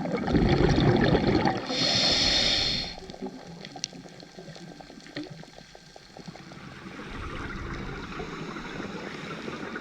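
Underwater scuba breathing: a loud rush of exhaled regulator bubbles, then a short hissing inhalation. After that, a quieter stretch of scattered sharp clicks and crackling from fish and crabs on the reef.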